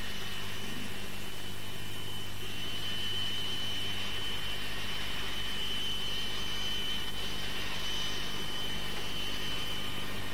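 Jet airliner's engines running as it taxis slowly, a steady high whine over a low hum.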